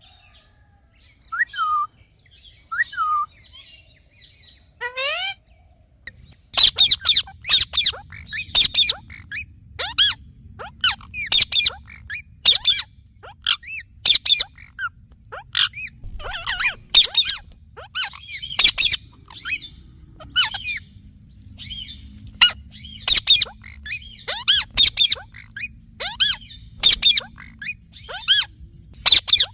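Indian ringneck parakeet calling: a few scattered sweeping calls, then from about six seconds in a dense run of loud, sharp calls, several a second.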